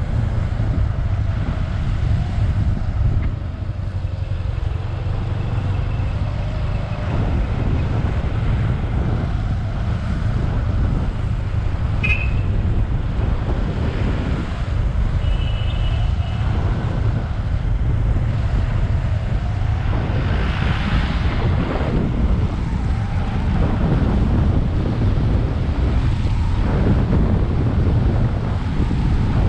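Wind buffeting the microphone while riding a Bajaj Avenger 220 motorcycle, with the engine's steady low drone underneath. Two brief high-pitched tones come about twelve and sixteen seconds in.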